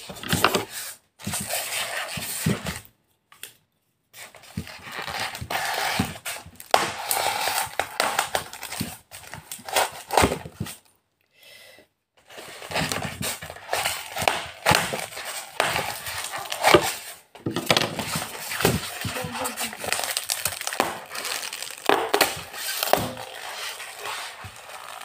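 Yellow packing tape being picked at, peeled and torn off a white styrofoam box, with crackly scraping and crinkling of tape against foam, broken by two short pauses.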